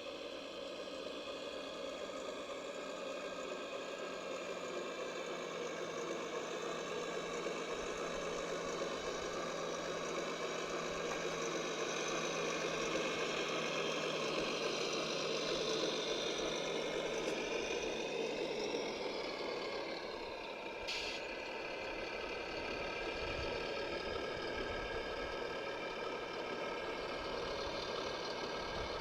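Radio-controlled construction machines running: a steady engine-like hum with motor whine that shifts in pitch, the low tone dropping about two-thirds of the way through. A single sharp click comes soon after.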